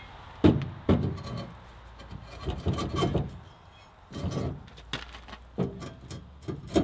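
Bulletproof 8-inch drop hitch shank being worked into a pickup's 2.5-inch receiver tube: metal-on-metal knocks and scraping. There are two sharp clunks about half a second and a second in, then several rough scrapes as it slides in.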